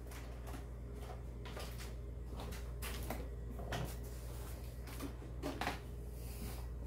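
Light handling sounds as a small RC crawler is set down among cardboard boxes: scattered faint knocks and rustles over a steady low hum.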